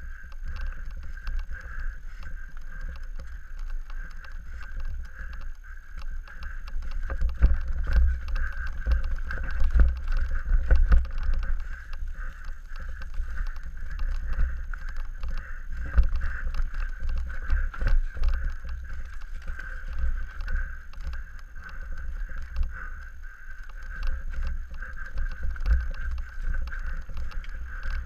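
Downhill mountain bike run heard from a GoPro: a heavy, fluctuating wind rumble on the microphone with a steady high-pitched hum over it, and the Scott Gambler's knocks and rattles as it hits bumps in the trail. The knocks are most frequent from about a quarter to nearly half way through, with single sharp ones a little past the middle.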